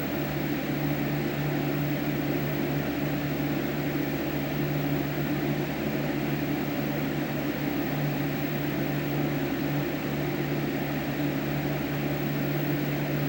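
Steady mechanical hum with an even hiss, like a running fan or air-conditioning unit, with no singing and no change in level.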